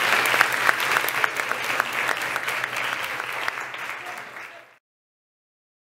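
Audience applauding, a dense patter of hand claps that fades and then cuts off abruptly to silence about three-quarters of the way through.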